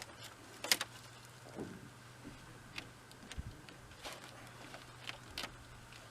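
Faint, scattered knocks and clicks of wood being shifted on a sawmill wood pile, a few irregular taps a second or so apart, over a low steady hum.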